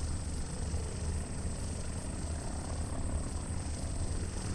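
Boeing Stearman biplane's Pratt & Whitney R-985 nine-cylinder radial engine running at low power on the runway as the throttle is eased forward for takeoff: a steady low rumble.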